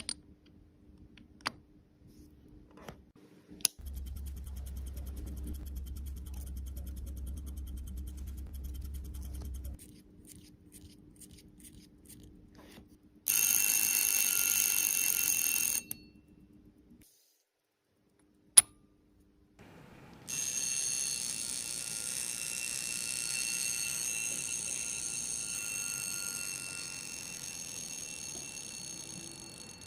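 Breguet Classique 'Le Réveil du Tsar' mechanical alarm wristwatch sounding its alarm: the hammer strikes the gong rapidly, giving a steady buzzing ring. It sounds twice, a short burst of about two and a half seconds about 13 seconds in, then a longer ring from about 20 seconds in that slowly fades. Scattered clicks and a low hum come before it.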